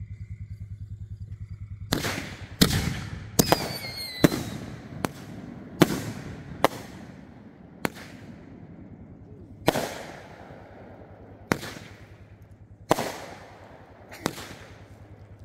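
Aerial fireworks going off: starting about two seconds in, a string of about a dozen sharp bangs spaced irregularly, each trailing off, with a falling whistle among the early ones.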